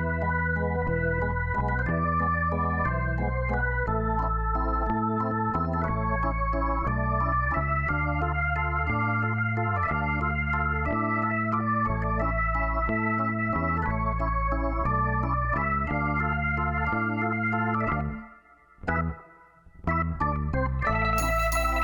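Background music: an organ-like electronic keyboard playing sustained chords over a stepping bass line. The music drops out briefly near the end, then starts again.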